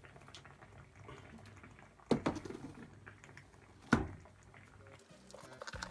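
Two sharp knocks, about two seconds apart, of a cardboard shoebox being set down on a stone countertop, over a low steady hum; background music starts near the end.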